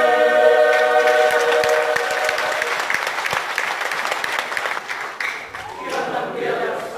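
Choir of mixed voices holding a sung chord that fades out about three seconds in, while the audience applauds throughout; a single voice calls out briefly about six seconds in.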